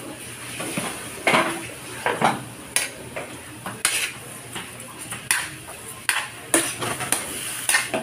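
Metal spatula scraping and knocking against a metal wok as diced pork is stirred, in uneven strokes about once or twice a second, over a faint steady sizzle of the meat frying.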